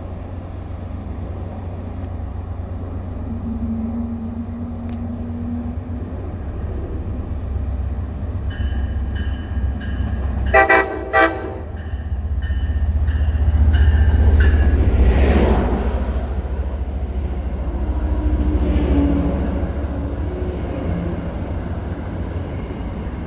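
MBTA MPI HSP46 diesel locomotive running with a steady low rumble, sounding two short horn blasts about ten and a half seconds in. The rumble swells loudest around fourteen to fifteen seconds and again near nineteen. A quick, high, repeating ding runs through the first six seconds and again around nine to eleven seconds.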